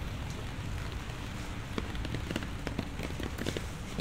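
Rain falling, with many irregular raindrop taps that come thicker after about two seconds, over a low steady rumble.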